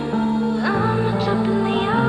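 Background pop song: sustained chords with a sung note sliding upward about halfway through, between lines of the lyrics.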